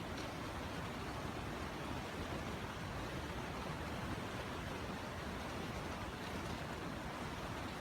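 Steady wind rushing and buffeting over the microphone.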